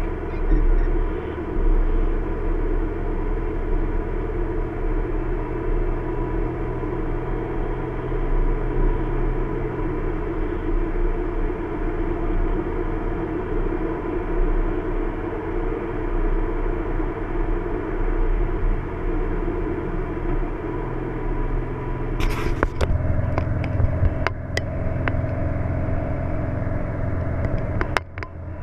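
A car being driven at steady speed, heard from inside the cabin as a continuous low engine and road rumble. A few sharp clicks come from about two-thirds of the way in, with the rumble changing at the same time, and a short drop and more clicks come near the end.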